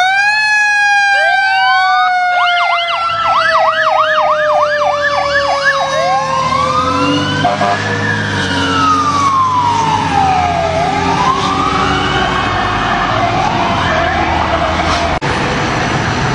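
Fire truck sirens. One siren sweeps up sharply at the start and then slowly drops in pitch over about ten seconds. A second siren yelps rapidly, about two cycles a second, then changes to a slow rising and falling wail.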